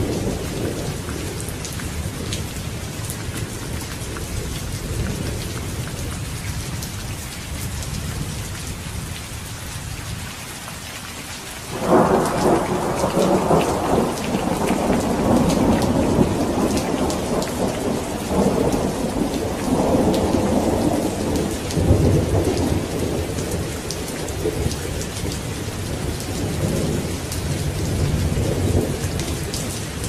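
Steady heavy rain with thunder. A rumble dies away, then a loud thunderclap breaks about twelve seconds in and rolls on in swells to the end.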